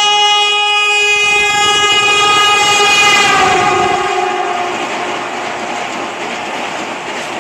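Vande Bharat Express electric train sounding its horn in one long blast as it approaches at full speed; about three seconds in, the horn's pitch drops as the front of the train passes. Then the loud rush of the coaches running by on the rails.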